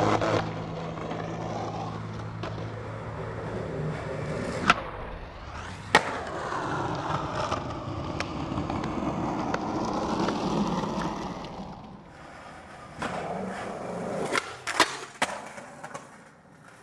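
Skateboard wheels rolling over concrete, with sharp clacks of the board striking the ground: one about five seconds in, another a second later, and several more near the end.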